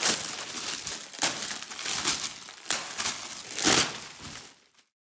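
Crinkling of a thin clear plastic bag as a bandana is pulled out of its packaging, coming in about five loud rustling bursts that fade and stop near the end.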